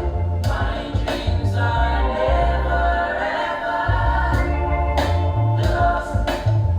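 Music: a choir singing in a gospel style over a strong bass line, with drum hits that drop out for a couple of seconds in the middle and return.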